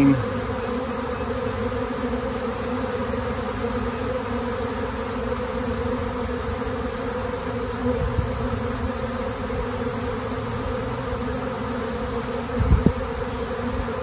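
A swarm of honeybees in flight, a steady, dense buzz of many wings from bees circling and landing on a swarm trap box. A brief low thump comes near the end.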